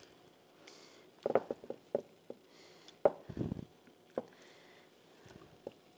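Soft wet squishing and a few light knocks as raw beef fillets are laid and pressed by hand into a glass baking dish of oil and lemon marinade, with a heavier soft thud about halfway through.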